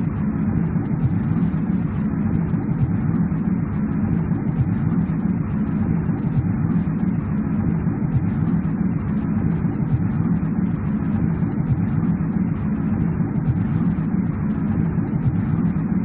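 Steady, unbroken rushing noise of a wintry wind ambience, heaviest low down with a thin hiss above it.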